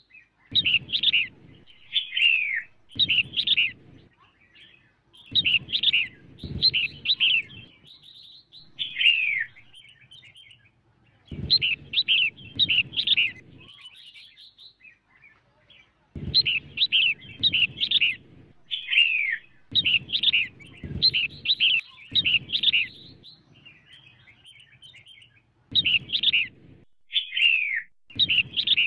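Female red-whiskered bulbul calling in short, bright phrases of quick falling chirps, repeated every second or two with brief pauses: the call played to rouse and provoke males. A low rumble sounds under most of the phrases.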